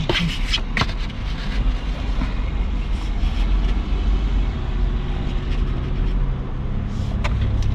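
A steady low vehicle rumble heard inside a car's cabin. A few sharp clicks and knocks come in the first second, as the sun visor is handled.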